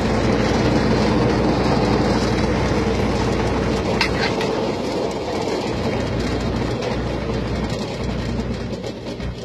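Scrambler carnival ride running, its rotating arms and tubs making a steady mechanical running noise with a low hum. A single sharp knock comes about four seconds in, and the noise gets somewhat quieter near the end.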